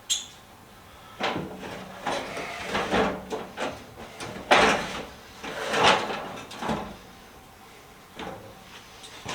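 Steel drawer of a Proto rolling tool chest being worked out of its slides. A sharp click comes first, then a few seconds of metal rattling and sliding with clunks, loudest about four and a half and six seconds in.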